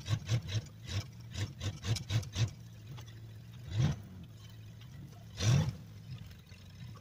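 1990 Dodge W250 pickup's engine revving in pulses as its tractor-tire wheels spin in deep snow without traction, the truck stuck. A quick run of pulses, about three a second, fills the first two and a half seconds, then two longer revs come about four and five and a half seconds in.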